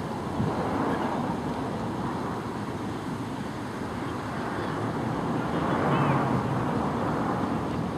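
Steady outdoor noise at a playing field: wind rumbling on the microphone, with faint distant voices.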